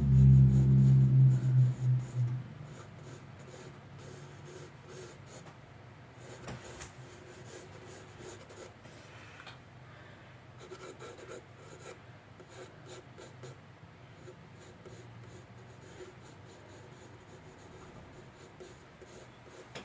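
Graphite pencil scratching on sketchbook paper in short, quick strokes. A loud low hum fills the first two seconds or so, then stops.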